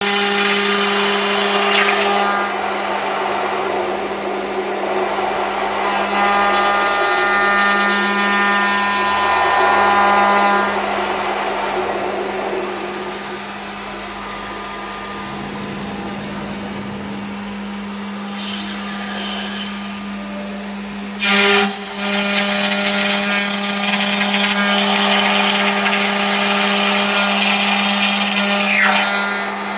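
A CNC aluminium-profile machining center's 9 kW spindle drilling and milling an aluminium extrusion: a high whine over a steady machine hum. It comes in louder spells, with a quieter stretch in the middle as the head moves between holes. Near the end the whine falls in pitch as the spindle winds down.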